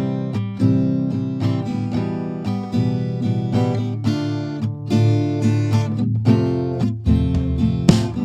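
Acoustic guitar music, plucked and strummed notes changing chord every second or so.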